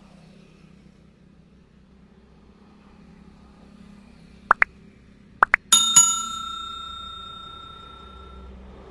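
Subscribe-button animation sound effects: two pairs of short clicking pops, about 4.5 and 5.5 seconds in, then a notification bell ding that rings out for about three seconds, over a faint low hum.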